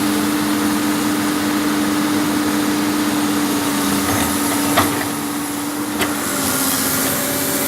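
Heavy diesel engine running at a steady speed, a constant drone, with two short knocks near the end.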